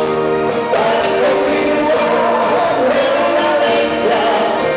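Loud music with singing, running without a break.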